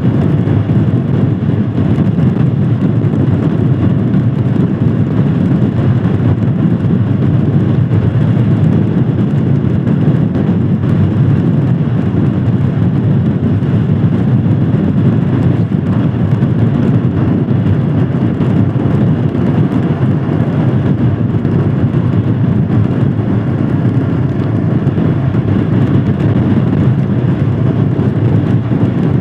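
Royal Enfield Scram 411 motorcycle being ridden at a steady pace: its single-cylinder engine runs evenly under a heavy, steady rush of riding noise with no changes.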